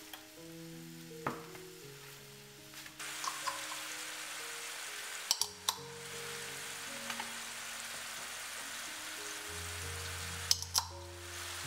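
Soft background music plays over kitchen sounds. A wooden spatula breaks up raw ground meat in a frying pan, with a clack about a second in. Then eggs are set into the plastic tray of an electric egg cooker, giving light clicks about halfway through and twice more near the end, over a steady hiss.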